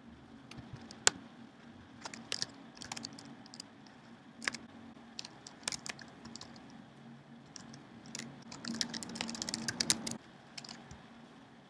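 Typing on a computer keyboard: a single sharp click about a second in, scattered keystrokes after it, then a quick dense run of keys about eight seconds in that stops abruptly near ten seconds.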